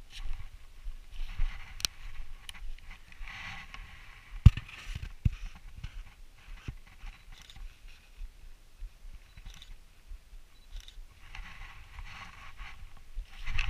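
Dry fallen leaves rustling and crunching underfoot in uneven swells, with rubbing and knocks from handling a body-worn action camera; a sharp knock about four and a half seconds in.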